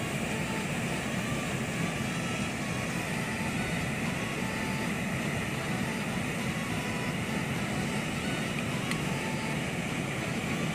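Steady roar of a waterfall and rushing river water.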